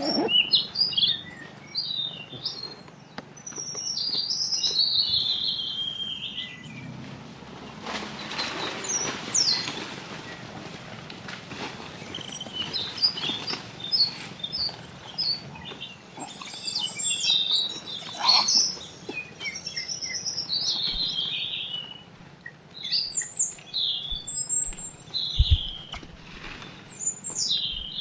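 High-pitched animal calls: short squeaky chirps and quick rising and falling squeals, repeated in clusters, with a rushing noise for a few seconds near the middle.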